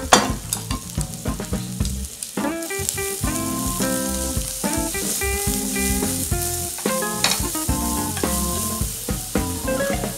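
Sliced onions, cocktail sausages and garlic sizzling in oil in a frying pan while being stirred and tossed, with a loud sizzle right at the start. Background music plays throughout.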